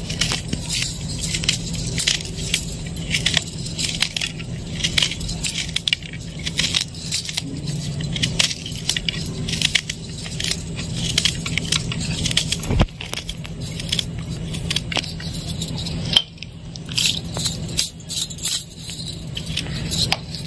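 Small knife slicing raw bitter gourd into rounds by hand: a quick, irregular run of crisp clicks and crunches, with the cook's bangles jingling at the wrist.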